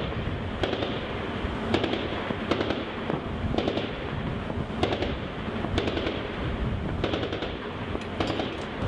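Gunfire: about eight single shots roughly a second apart, the last a short cluster of rounds, over a steady rumble of wind and ship noise.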